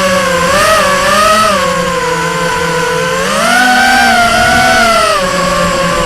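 FPV multirotor drone's electric motors and propellers whining steadily. The pitch rises and falls with throttle, climbing a little past the middle and settling back down near the end.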